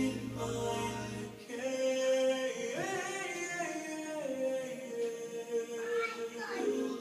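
A group of children singing slowly, holding long notes. A low hum underneath drops out about a second and a half in.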